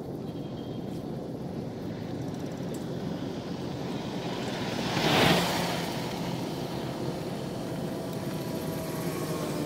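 A vehicle passing by, swelling and fading about five seconds in, over a steady outdoor background noise.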